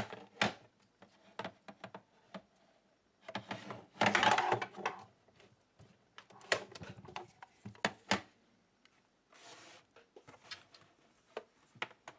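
Hands handling video camera equipment and its cables: scattered sharp plastic clicks and knocks, with a louder stretch of rustling and rattling about four seconds in.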